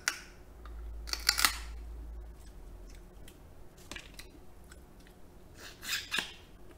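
Close-miked eating of king crab: sucking and chewing the meat out of a claw piece in a few short, wet bursts, with sharp clicks of the shell in the gloved fingers.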